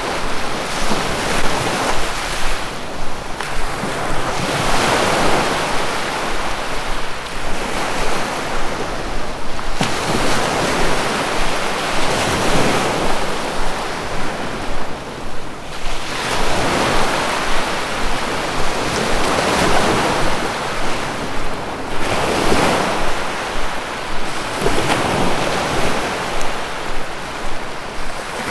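Sea waves breaking and washing on a shore, a steady hiss of surf that swells every few seconds as each wave comes in and then ebbs.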